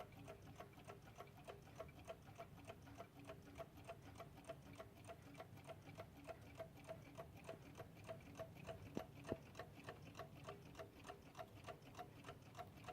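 Vintage Shanghai-made animated mechanical alarm clock movements ticking faintly, fast and even at several ticks a second, with one louder click about nine seconds in.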